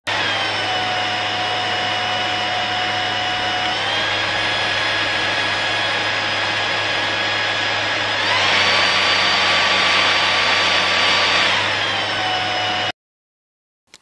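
Toppin cordless stick vacuum cleaner running with a steady high whine. It steps up in pitch about four seconds in, then up again and louder about eight seconds in, as it is switched through its minimum, medium and maximum suction settings. It drops back down shortly before switching off near the end.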